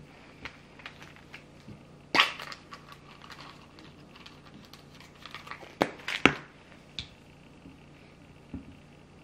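Small clicks and knocks of a plastic pill bottle being handled and cheese being cut on a cutting board, with a short sharp sound about two seconds in and two loud snaps, like a bottle cap, a little after halfway.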